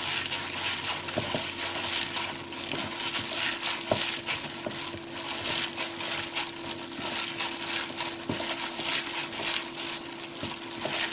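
A hand in a plastic glove kneads and squeezes rehydrated dried radish strips into a red pepper paste seasoning in a stainless steel bowl. It makes a wet, rustling mixing noise in irregular strokes, with a faint steady hum underneath.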